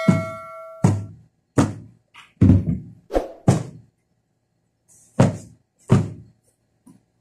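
Dull, irregular thumps as cushioned sofa cushions are handled and thumped down, about eight in all with a pause in the middle. A short bell-like ding rings out and fades in the first second.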